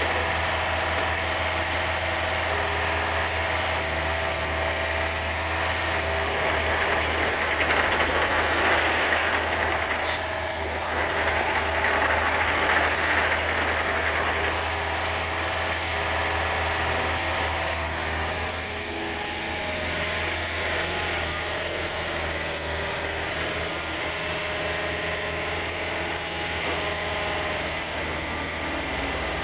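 Takeuchi TB250 mini excavator's diesel engine running steadily, with its hydraulics working the boom, arm and tilting bucket; the hydraulic noise swells for several seconds about a quarter of the way in, then eases back.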